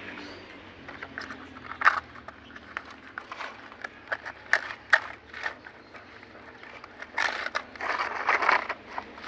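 Toy cars being handled and pushed about: irregular clicks and knocks, with a stretch of scraping from about seven seconds in.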